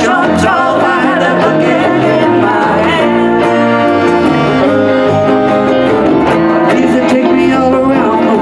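Live band playing a song, with acoustic and electric guitars, bass guitar, saxophone and drums, a wavering melody line riding over the groove.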